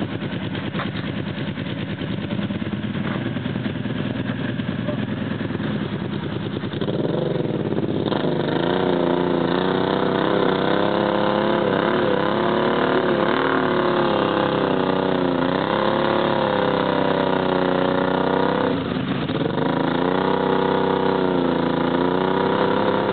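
Quad ATV engine running steadily, then revved harder from about seven seconds in, its pitch rising and falling again and again as the bogged-down quad tries to pull out of deep mud. The revs drop briefly a few seconds before the end, then climb again.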